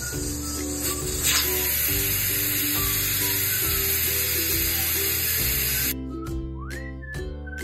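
Steam hissing steadily from the vent pipe of a Sonex pressure cooker, over background music. The hiss grows louder about a second in and cuts off abruptly near the end.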